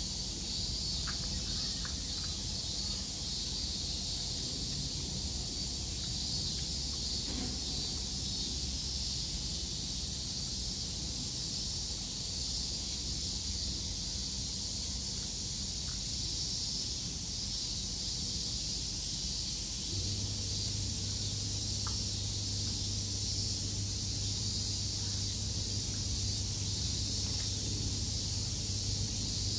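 Steady high-pitched hiss of outdoor ambience, with a low steady hum setting in about two-thirds of the way through.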